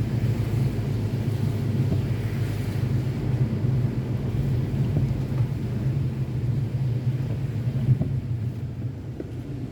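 Car driving on wet streets: a steady low rumble of engine and road noise, easing slightly near the end.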